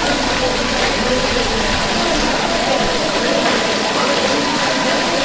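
Steady splashing of a small garden fountain, its water spurting over statues and falling into a basin.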